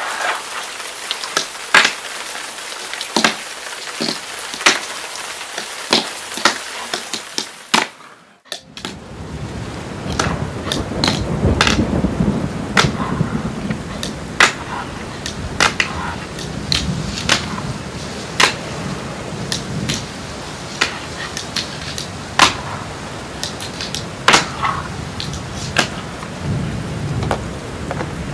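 A fingerboard clicking and clacking on a flat wooden ramp board as tricks are popped and landed, at irregular intervals, over a steady hiss. From about eight seconds in, after a brief dropout, the small wheels rolling add a low rumble.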